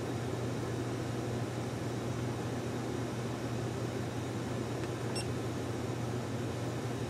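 Steady low hum of room noise, with one short, high electronic beep about five seconds in from a GoPro HERO4 Session camera. The beep comes as the camera is powered up for a test after its ribbon cables were reseated.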